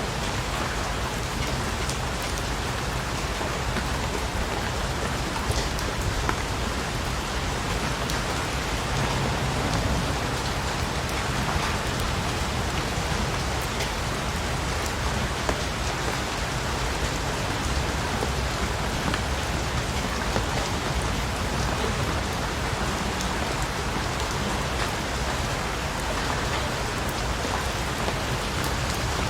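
Steady rain falling and pattering on surfaces, an even hiss with many individual drop ticks, holding constant throughout.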